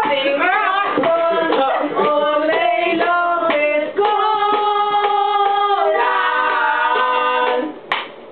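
Several voices singing a cappella in harmony. Short sung notes change quickly for about four seconds, then two long chords are held, and the singing cuts off near the end.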